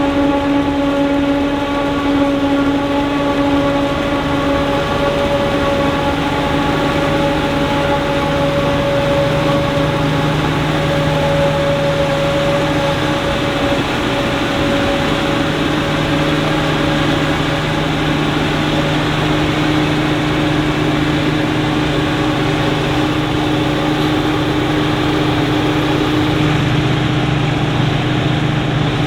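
Krone BiG X 680 forage harvester and its attending tractors working in maize, running steadily under load with a droning whine whose pitch shifts slightly a few times.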